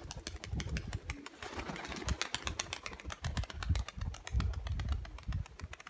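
Nikolaev pigeons flapping and clapping their wings as they are tossed up and take off: a quick run of sharp wing claps over some low thumps.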